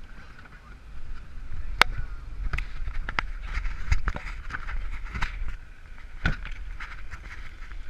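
Duramax 6.6-litre V8 turbo-diesel of a 2015 Chevrolet Silverado running: a low rumble that grows louder about a second in and eases off near the end. Scattered sharp clicks and knocks sound over it, the loudest just under two seconds in.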